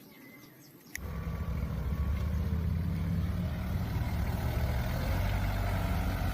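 An engine runs steadily at idle with a low, even hum. It starts suddenly with a click about a second in.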